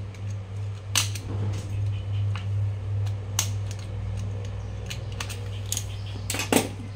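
Sharp clicks and light knocks as the red plastic head and guard of a battery grass trimmer are handled on the bench, four or so scattered through, the loudest near the end, over a steady low hum.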